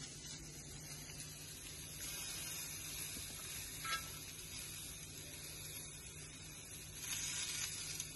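Quiet, steady hiss of uttapam batter cooking in a pan on a gas stove, over a low steady hum. There is a soft click about four seconds in and a brief rustle near the end as vegetables are pressed onto the batter by hand.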